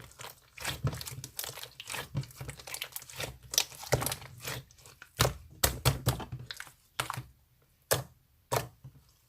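Irregular crinkling and clicking handling noises, dense at first and then thinning to a few sharp clicks near the end.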